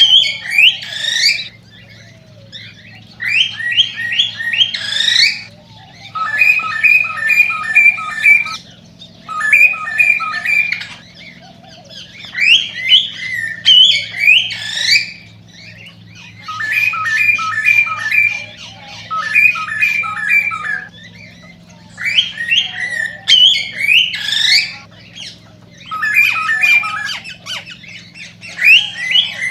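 Male cockatiel singing in phrases of rising whistled chirps, some broken into quick stuttering runs of repeated notes, with short pauses between phrases. It is the excited courtship song of a male before breeding.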